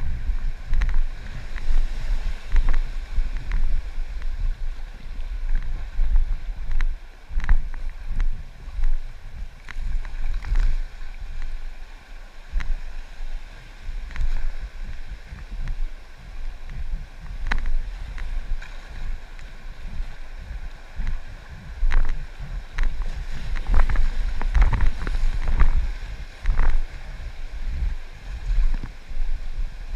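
River water rushing and splashing around an inflatable kayak, with irregular sharp splashes and wind buffeting the camera's microphone.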